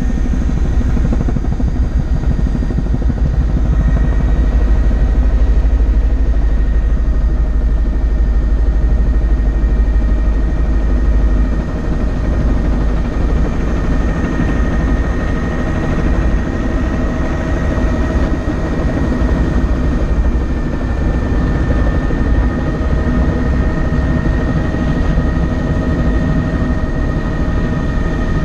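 Helicopter rotor and engine running steadily on the landing approach: a heavy low rotor thrum under a steady high turbine whine. The low thrum drops off noticeably about eleven seconds in as the helicopter comes down to the ground.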